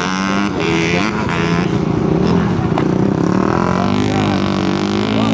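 250cc dirt-track racing motorcycles running hard, engine pitch rising and falling with throttle and gear changes, several engines overlapping.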